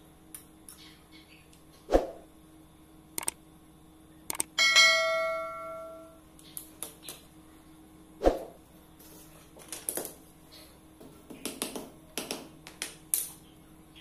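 Welded wire mesh and metal tools clinking and knocking on a tile floor as the mesh is worked with pliers and a hammer: scattered light clicks, two sharp knocks, and one ringing metallic clang about four and a half seconds in that dies away over a second or so.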